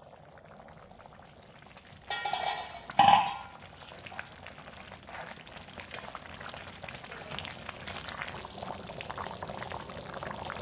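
Rice boiling hard in a pan of spiced water on high flame: a steady bubbling hiss. Two metallic clanks come about two and three seconds in, the second the louder.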